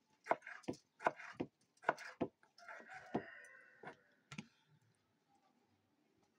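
Kitchen knife slicing through tomatoes and striking a wooden cutting board in steady strokes, about two to three a second, with one last cut near the end. A rooster crows for over a second in the middle.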